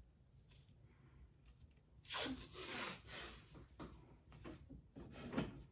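Painter's tape (FrogTape) being pulled off its roll in a series of ripping strokes, the longest about two seconds in and shorter ones toward the end.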